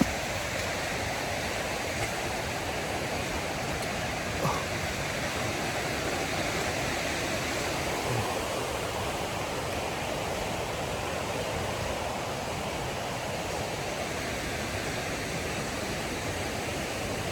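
Waterfall's rushing water, a steady even hiss, with a few faint knocks.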